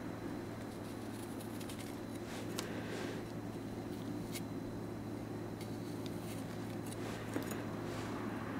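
Japanese kitchen knife paring the edges of a carrot round into a plum-blossom shape: soft scraping of the blade through the carrot with a few short sharp ticks, over a steady low hum.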